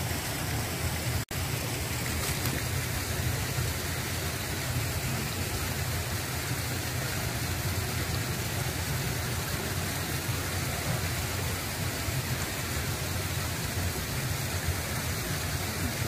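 Steady rushing of flowing creek water, which cuts out for an instant about a second in.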